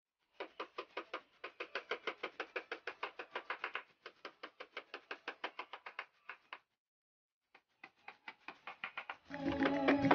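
Hammer driving nails into a reclaimed-wood workbench frame: rapid light taps, about six a second, with a pause of about a second past the middle. Guitar music comes in near the end.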